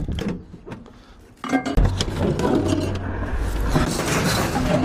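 Metal and glass clinks and rattles of scrap appliances being handled, with a steady low rumble and denser rattling coming in about one and a half seconds in.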